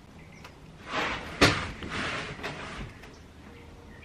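Handling noise: rustling, then a sharp knock about one and a half seconds in, followed by more rustling and scraping.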